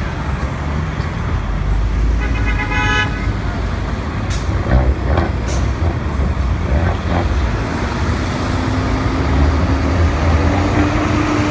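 Heavy city street traffic, a steady low rumble of engines and tyres, with a short vehicle horn toot about two seconds in. Near the end an engine note rises slowly as a city bus pulls away.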